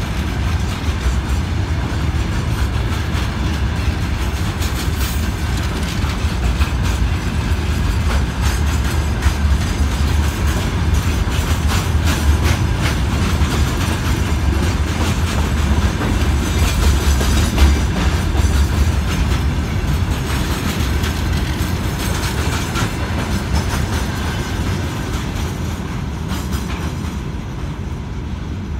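A freight train of covered hopper wagons rolls past at close range, a steady rumble with the rapid clatter of wheels over the rail joints. It fades over the last few seconds as the tail wagon moves off.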